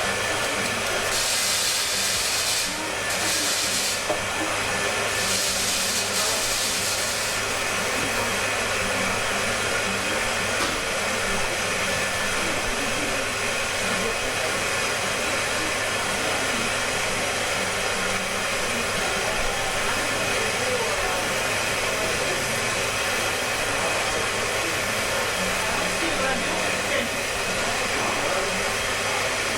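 Coffee shop room ambience: a steady rush of noise over a low hum, with three short bursts of high hiss in the first seven seconds.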